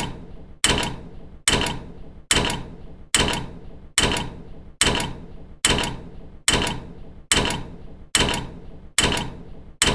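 Metal door slamming shut over and over at an even pace, about once every 0.8 seconds, each bang followed by a short metallic ring that dies away.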